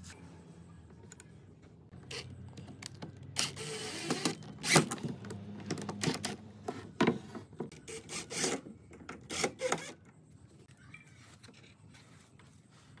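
Small metal butt hinges being screwed onto a pine frame with a cordless drill-driver: short runs of the driver with sharp clicks and knocks of metal and wood, mostly between about two and ten seconds in.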